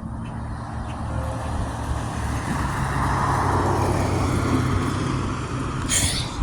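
A motor vehicle driving past: a low engine hum and tyre noise swell to a peak about halfway through, then fade.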